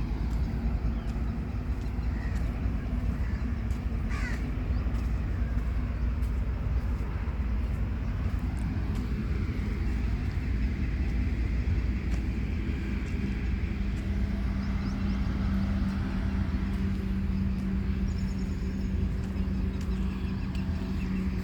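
Steady low rumble with a steady hum, and a few short bird calls over it, one falling call about four seconds in.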